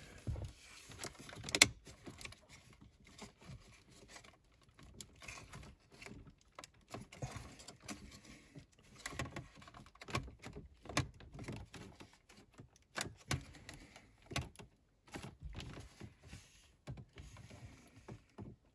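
Small plastic clicks and rattles from wiring-harness connectors being handled and worked at the back of a car radio head unit, irregular and light, with one sharper click about a second and a half in.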